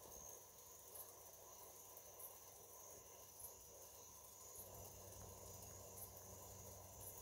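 Near silence with a faint, steady high-pitched trill of crickets.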